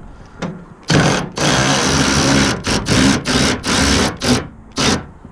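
Handheld power tool, a drill or impact driver, running in about six trigger-pulled bursts, the longest over a second, while backing out bolts holding a truck fender.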